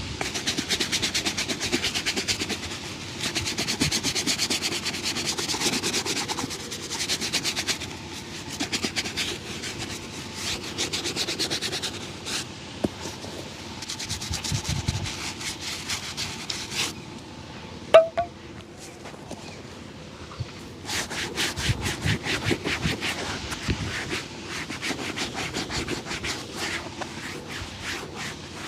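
A leather shoe being brushed and rubbed during a shoe shine: long runs of quick, repeated scrubbing strokes, with a single sharp click about eighteen seconds in.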